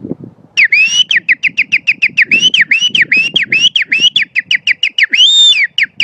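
A man's loud bird-imitation whistle, made with his fingers at his lips: a rapid run of chirping notes, each swooping up and down, about five a second. It starts about half a second in, with a longer held note at the start and another near the end.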